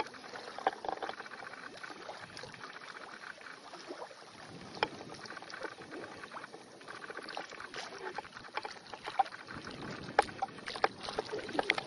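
Lake water sloshing and splashing around an elephant swimming across the lake, with a few sharp clicks, most of them near the end.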